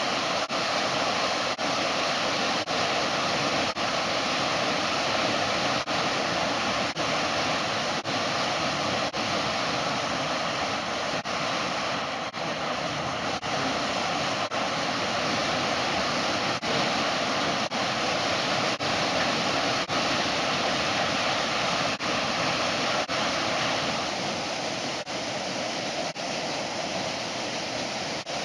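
Steady rushing of a waterfall, broken by brief regular dips in level about once a second.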